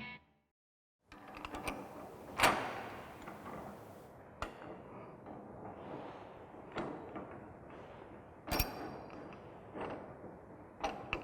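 Scattered knocks and clicks from plumbing pipe and fittings being handled on a work surface, the loudest about two and a half seconds in, with a few lighter knocks spread out after it.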